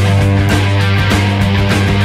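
Background music with a steady beat over a held low note.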